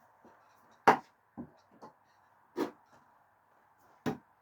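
Screwdrivers thrown no-spin striking a wooden target: three sharp knocks about a second and a half apart, the first the loudest, with two lighter knocks after the first.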